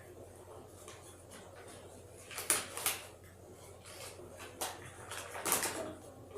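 A few short knocks and rustles from a flour package and cup being handled, four or so sharp sounds spread over the middle and later part.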